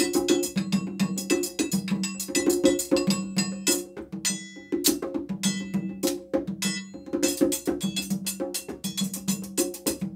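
Chimta, the long steel tongs with jingles, played in a fast, busy rhythm of metallic clangs and jingles, thinning briefly about four seconds in.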